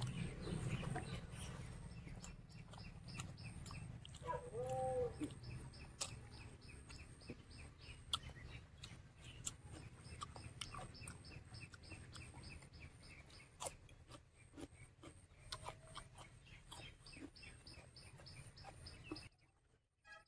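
Faint chewing and mouth clicks of a man eating rice and pork fry by hand, over a low steady hum, with a small bird chirping over and over in the background and a short gliding call about four and a half seconds in.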